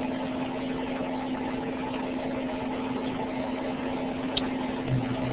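Steady hum and hiss from an open microphone, carried over narrow-band web-conference audio. There is a faint click about four seconds in, and a second, lower hum tone joins near the end.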